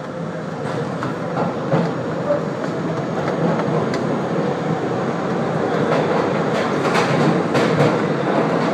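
An R42 subway train running through a tunnel, heard from inside the car: a steady rumble of wheels on rail with irregular clicks and clacks, growing slowly louder.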